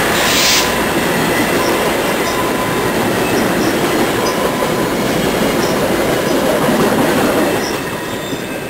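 VIA Rail LRC passenger coaches rolling past on the track, a steady rumble of wheels on rail that fades away near the end as the last car goes by.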